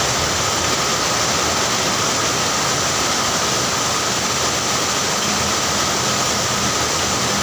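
Heavy rain pouring down steadily as a dense, even hiss. A faint low hum comes in about five seconds in.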